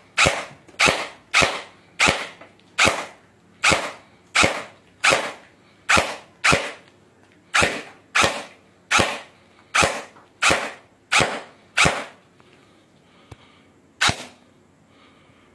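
Quasar 2077 gel blaster firing single shots at a steady pace of one to two a second, about twenty in a row, each a sharp shot with a short fading tail. After a pause of about two seconds there is one last shot near the end.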